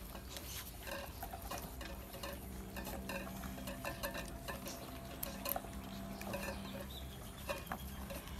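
A litter of Bangkaew puppies lapping and eating from plastic bowls on concrete, a busy patter of many small wet clicks and taps as they jostle at the bowls.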